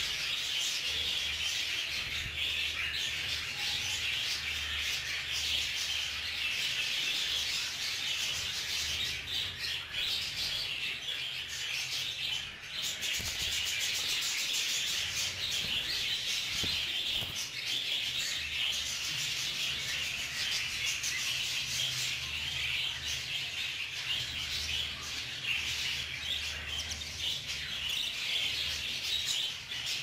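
A group of young budgerigars chattering and chirping continuously: a steady, busy twitter with no pauses.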